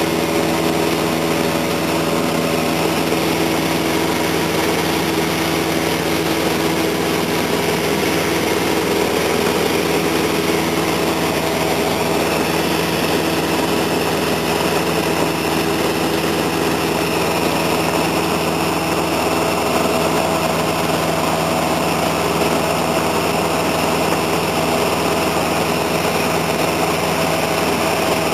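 Light aircraft's engine and propeller droning steadily in cruise, heard from inside the cabin, with a constant pitch throughout.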